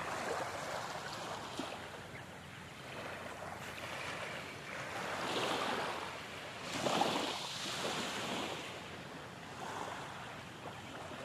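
Small waves lapping on a sandy, shell-strewn beach, washing in and out in gentle swells, loudest about seven seconds in, with some wind on the microphone.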